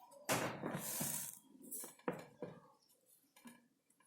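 Faint handling noise: a short scraping rustle, then two sharp clicks about a third of a second apart.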